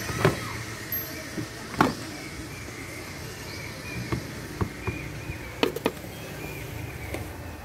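Scattered sharp clicks and knocks of plastic tubs, lids and a metal spoon being handled and scraped in a tub, over a steady low hum of background street noise.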